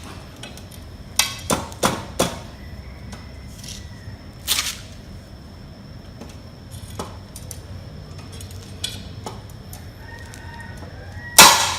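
Ceramic tile and a manual tile cutter's metal parts clicking and knocking lightly a few times as the tile is handled on the cutter. Near the end comes a sharp, loud crack as the cutter snaps a narrow strip off the scored tile.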